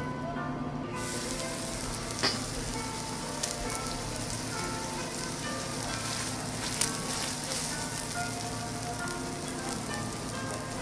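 Ishigaki wagyu oyster blade steak sizzling on a hot teppanyaki griddle, the sizzle starting about a second in, with two sharp clicks along the way. Light background music plays underneath.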